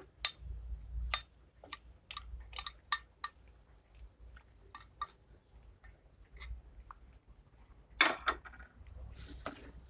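Metal spoon clinking and tapping against a dish and a clay pot as chilli powder is spooned in: scattered light clicks, with a louder clatter about eight seconds in.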